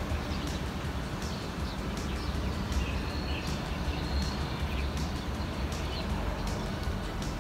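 Small birds chirping in short, high, scattered notes over a steady low rumble of outdoor background noise.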